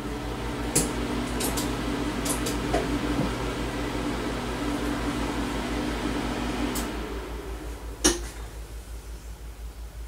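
Lab light-curing unit running with a steady hum while it cures resin cement, cutting off about seven seconds in. A few light clicks sound near the start and a sharp click comes about a second after it stops.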